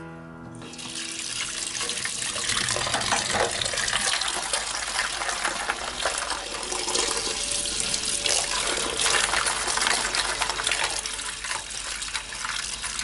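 Kitchen tap running and splashing into a small bowl of fishing lures in a stainless-steel sink as the soap is rinsed off. The water starts about half a second in and then runs steadily.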